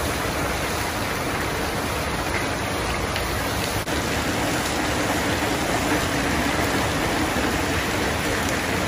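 Loud, steady rushing of floodwater flowing through a street, with a brief dip about four seconds in.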